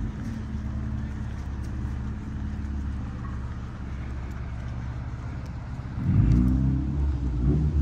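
Road traffic: a car engine running steadily at low speed, with a louder, wavering engine sound coming in about six seconds in.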